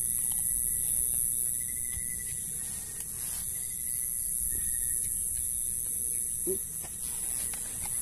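Steady high-pitched chorus of night insects, with a low rumble underneath and a few faint clicks, like a metal spoon against the mess tin.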